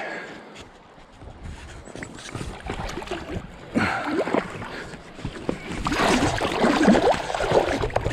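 River water splashing and sloshing, irregular and loudest in the second half.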